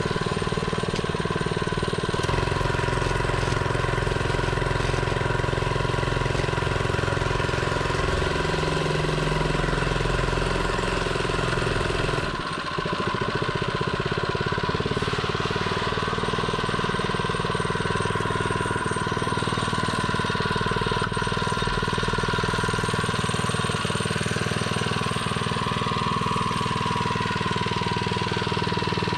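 A mini bike's small engine runs steadily at an even speed, with a brief dip about halfway through. This is the bike's first ride.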